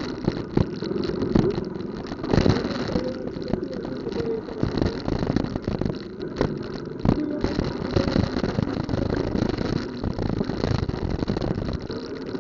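Street traffic in a jam: car and motorcycle engines idling and running at low speed, with frequent short knocks and rattles.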